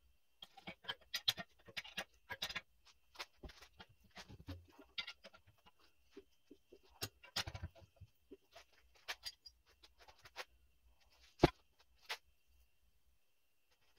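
Scattered clicks, knocks and rubbing from a phone camera being handled and set down, with one sharp knock about eleven and a half seconds in.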